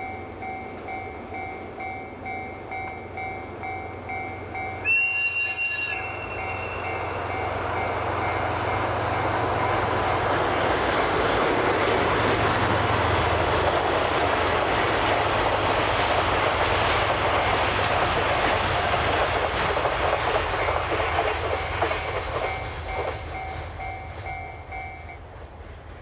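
Level-crossing warning bell dinging in a steady rhythm while a JR Freight DF200 diesel-electric locomotive gives one short whistle blast about five seconds in. Then the locomotive and its long train of container wagons pass with steady wheel and engine noise, loudest through the middle. The bell stops near the end.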